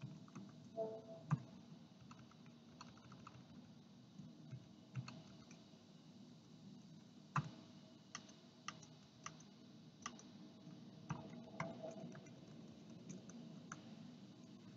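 Faint, irregular clicks of a computer keyboard and mouse as commands are typed and entered.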